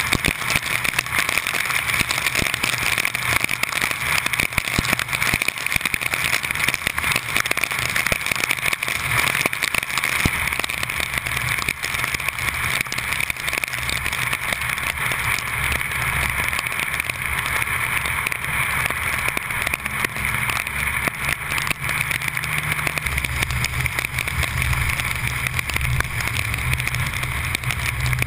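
Heavy rain falling on a vehicle, with many small drop hits over a steady hiss and the low hum of the engine running underneath; the hum grows louder near the end.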